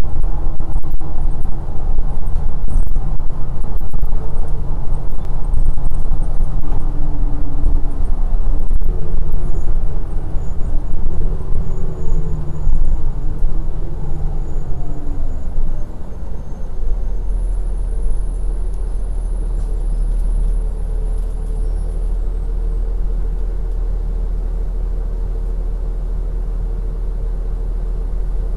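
Cabin noise of a moving vehicle: a steady low rumble, with engine tones rising and falling in pitch during the first half, then settling into an even drone for the rest.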